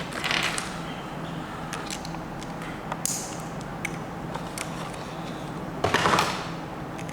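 Beyblade parts being handled and fitted together: scattered small clicks, with two brief rustling scrapes, one just after the start and a louder one about six seconds in.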